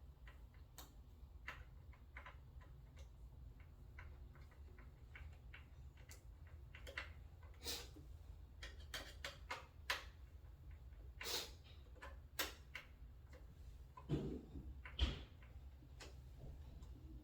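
Irregular light clicks and taps of a screw being driven by hand with a screwdriver into a small metal bracket on a flat-pack cabinet, with a few louder knocks in the second half.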